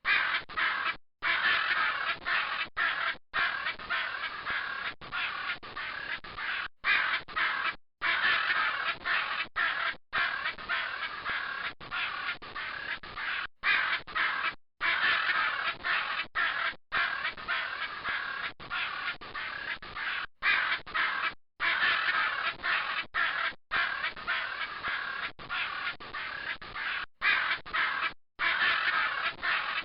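Macaws squawking continuously in a dense run of calls, broken by brief silent gaps every second or two.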